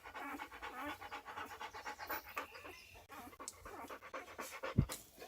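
Dog panting fast and steadily close to the microphone. A single low thump comes near the end.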